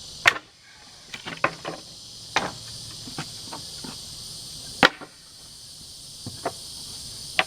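A steel pallet-dismantling tool prying boards off a wooden pallet: a series of sharp knocks and cracks as the nailed boards and wood give way, the loudest about five seconds in. A steady chirring of insects runs underneath.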